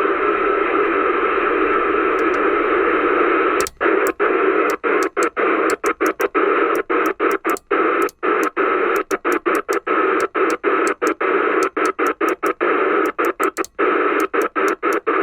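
Q60 CB radio's speaker giving steady FM hiss on empty UK FM channels. From about a quarter of the way in, the hiss cuts out in many very short gaps, roughly three a second, as the channels are stepped through, then runs steadily again near the end.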